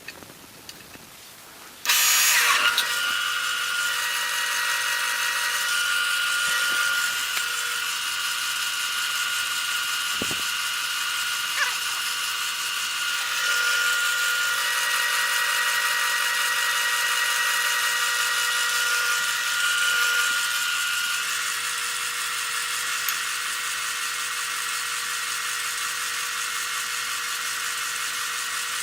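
Wood lathe starting about two seconds in, then running steadily with a high whine over a hiss.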